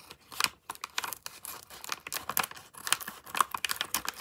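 Scissors cutting open a foil plastic blind-bag packet. The packaging crackles and crinkles in quick, irregular snips and rustles.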